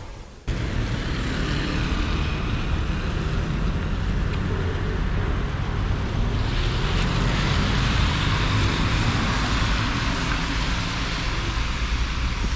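Outdoor city ambience: a steady rumble and hiss of distant traffic noise, starting suddenly about half a second in and growing somewhat louder and brighter about six seconds in.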